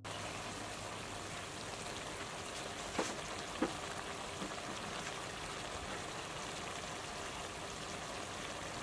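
Squid stir-fry with lemongrass and chili simmering in a wok, the sauce bubbling and sizzling with a steady crackle like rain. Two light knocks about three seconds in.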